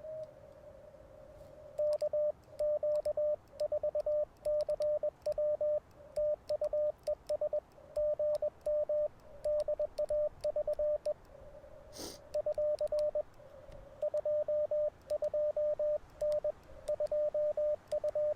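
Icom IC-705 CW sidetone at one steady pitch, keyed on and off in Morse code dots and dashes as a message is sent on twin paddles, with faint paddle clicks at the key strokes. One sharper click comes about twelve seconds in.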